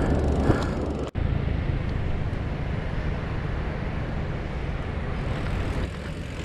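Wind buffeting an action camera's microphone: a steady low rumble, broken by a brief gap about a second in.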